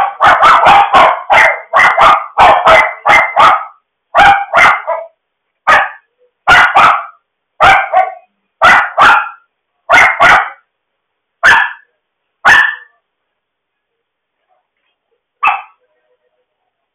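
A dog barking loudly and repeatedly: a fast run of several barks a second at first, thinning out to single and paired barks a second or so apart.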